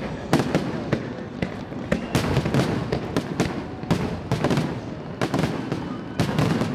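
Aerial fireworks shells bursting in quick succession: a dense string of bangs and crackles, two or three a second, with no pause.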